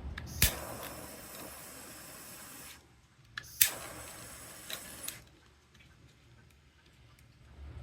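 Butane torch lit twice with its piezo igniter: a sharp click, then the jet flame hissing steadily for about two seconds before it cuts off. It is clicked again about three and a half seconds in and hisses for another second and a half.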